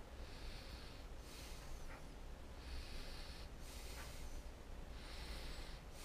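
A person breathing through the nose close to the microphone, a breath about every second or so, over a steady low hum.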